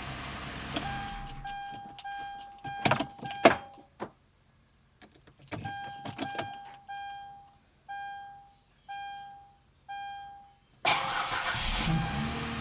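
Car dashboard warning chime dinging about ten times, each ding fading out, with a few sharp clicks and knocks in between. About eleven seconds in, the 2008 Hyundai Azera's V6 engine cranks and starts cold, settling into a fast idle.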